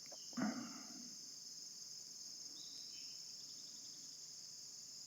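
Steady high-pitched chorus of crickets, with one short soft noise about half a second in.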